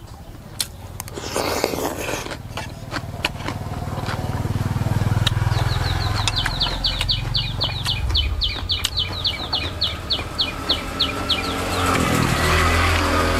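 A crisp crunch as a piece of raw vegetable is bitten about a second and a half in. Under it, an engine runs in the background, building over several seconds and swelling again near the end. Through the middle comes a rapid high chirping trill, about six notes a second.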